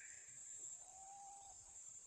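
Near silence: a faint steady high-pitched drone like insects in the field, with one faint soft hooting note about a second in.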